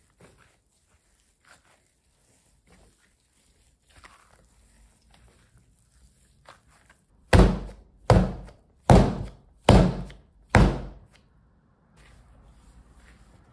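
Pumpkin bread dough being slammed down onto the work surface five times in quick succession, heavy thuds about once every 0.8 seconds, as part of kneading. Faint soft squishing of the dough being pressed and worked by hand comes before and after.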